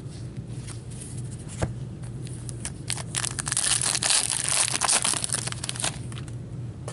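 Foil wrapper of an Upper Deck MVP hockey card pack being torn open and crinkled by gloved hands. A few light clicks come first, then a dense crackle from about three seconds in that stops shortly before the end.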